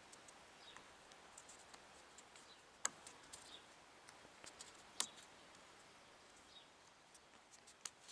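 A few sharp metallic clicks, the loudest about three, five and eight seconds in, with faint ticks between: the piston of a Royal Enfield 550 unit-construction Bullet being rocked by hand in its cylinder bore and knocking against the wall. The knocking comes from the slack that causes the engine's piston slap.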